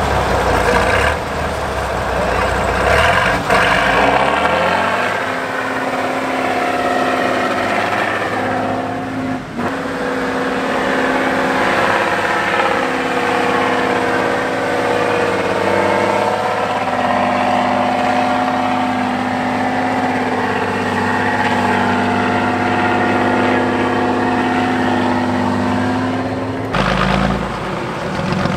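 Heavy multi-axle trial truck's diesel engine working under load on a steep muddy climb, revs rising and falling; the sound changes abruptly near the end.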